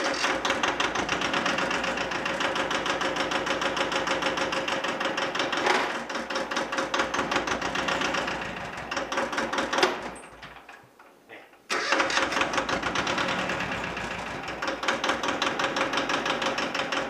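Yanmar YM155D tractor's two-cylinder diesel fires up at once and runs with a fast, even diesel clatter. About ten seconds in it dies away and stops, then fires up again a couple of seconds later and keeps running.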